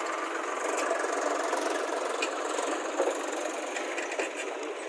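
Swaraj 735 FE tractor's diesel engine running steadily as it pulls a trolley loaded with soil away.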